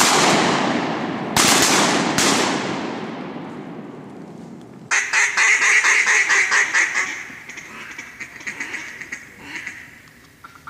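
Two shotgun shots about a second apart, each dying away slowly through the timber. A few seconds later comes a fast, loud run of mallard quacks that thins out and fades over the next few seconds.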